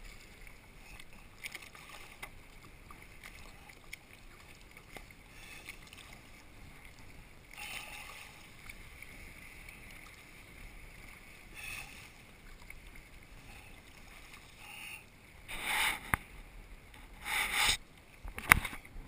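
Kayak paddle strokes: the blades dip and pull through shallow water with splashing and dripping, and a couple of louder splashes come near the end. A few sharp clicks follow just before the end.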